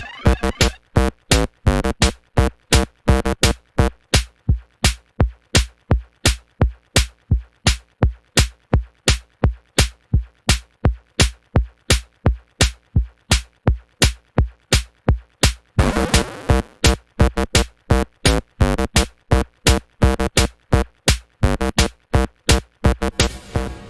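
Electronic music built on a steady drum-machine beat, about two and a half pitched hits a second.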